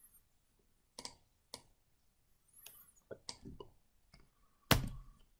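Scattered computer mouse and keyboard clicks: a few single clicks, then a short quick run, and one much louder click about four and a half seconds in.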